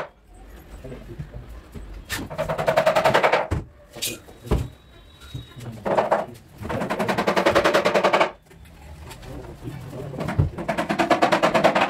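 Cordless drill-driver run in three bursts of about a second and a half each, with a rapid rattle, driving screws while cupboard doors are fitted. A few short knocks come between the bursts.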